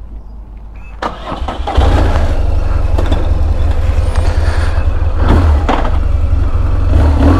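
A 2005 BMW R1200GS's flat-twin boxer engine being started: a brief crank about a second in, catching just under two seconds in, then idling steadily.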